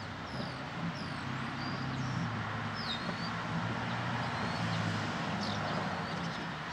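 A steady low engine hum under a broad rush of noise, with small birds chirping briefly several times.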